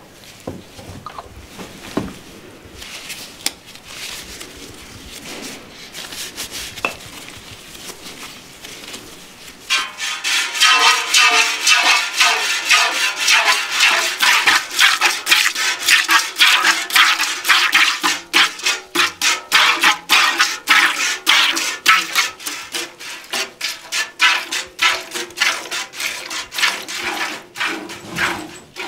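Cow being milked by hand: streams of milk squirt into a metal pail in a quick, even rhythm and ring off the metal. Faint and scattered at first, the squirting becomes loud and steady from about ten seconds in.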